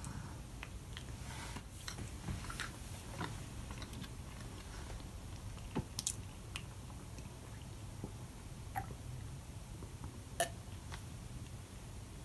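A person chewing a mouthful of food with the mouth close to the microphone, with scattered soft clicks and a couple of sharper ones.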